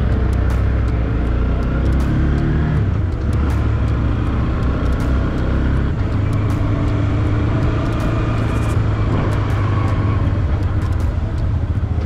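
Motorcycle engine running while riding, with a loud low rumble. The engine pitch climbs, breaks off about three seconds in, then runs steady again.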